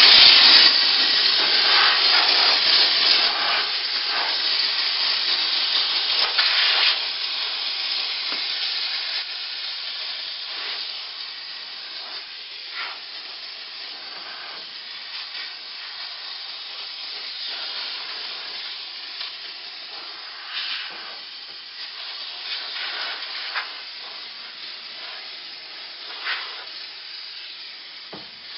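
Portable steam cleaner jetting steam onto an indoor slant evaporator coil: a steady hiss, loudest for the first seven seconds, then quieter with a few brief surges.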